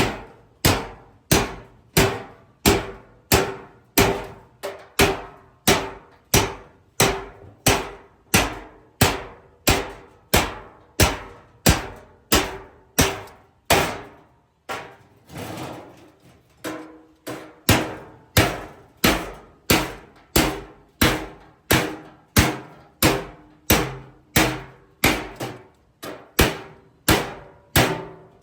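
Steady hammer blows on sheet steel, about three strikes every two seconds, each with a short metallic ring. The rhythm breaks briefly about halfway, then picks up again.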